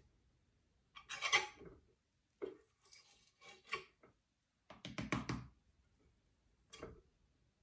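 Soft scrapes and light taps of a small hand tool working wet acrylic paint at the canvas edge, in several short bouts.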